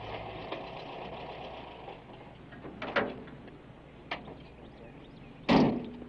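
Volkswagen Thing pulling up: its engine hum fades out over the first couple of seconds, a car door latch clicks open about three seconds in, and the door is slammed shut near the end with a loud bang.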